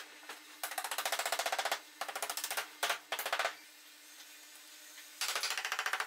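Cordless impact driver hammering screws into pallet-wood boards: three rapid rattling bursts of a second or less, then another starting about five seconds in.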